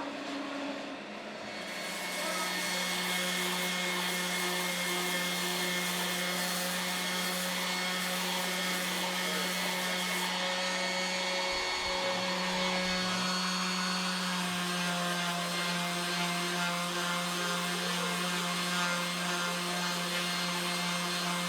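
Wood lathe running steadily, a held motor hum under the hiss of wood being worked. It comes up about two seconds in and briefly dips about twelve seconds in.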